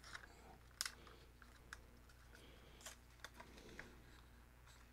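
Faint, scattered plastic clicks and handling noise as the folding arms of a DJI Mini 2 SE drone are swung open, about half a dozen small clicks with the sharpest one near the start.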